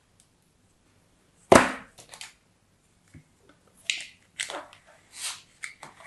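Packed moldable play sand being crushed and crumbled by hand in a plastic tray. There is one sharp, crunchy thud about a second and a half in, then a run of short crumbly crunches near the end.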